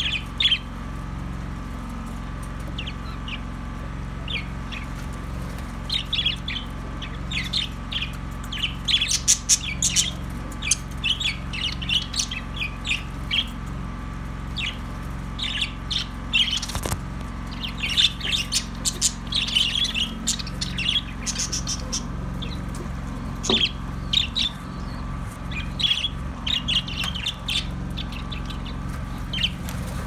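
A flock of budgerigars chattering, with many quick high chirps in irregular bunches that grow busier from about six seconds in, over a steady low hum.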